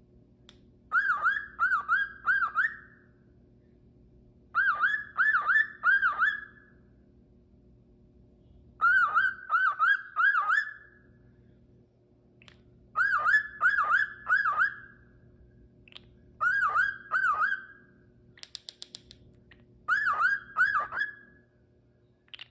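Cockatiel whistling the same short phrase over and over, four quick up-and-down whistled notes each time, six times, with a brief run of rapid clicks between two of the phrases.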